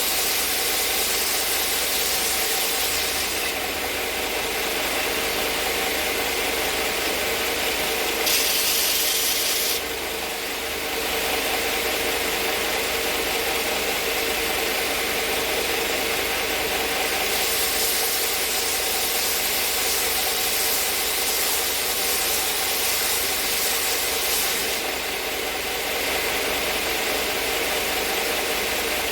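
ShopSmith Power Pro belt sander running steadily with an 80-grit belt at 1525 RPM, its motor humming under the rasping hiss of hardwood pressed against the belt. The sanding hiss swells and eases as pieces are worked, loudest briefly about eight seconds in and for a long stretch in the second half.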